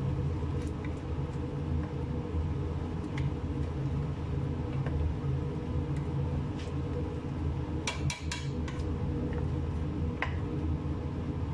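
Wooden spoon stirring meat in tomato sauce in a stainless steel pot, with scattered light knocks and scrapes against the pot and a quick cluster of them about eight seconds in. Under it, a steady low hum.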